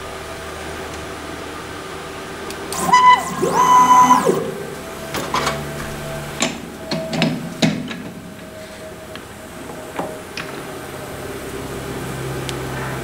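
Small CNC lathe running its turning program: a steady motor hum, a loud whining rapid move of the slides about three seconds in, then the tool taking a light skim cut off the bar with scattered clicks and ticks. The spindle pitch shifts near the end as constant-surface-speed control changes its speed.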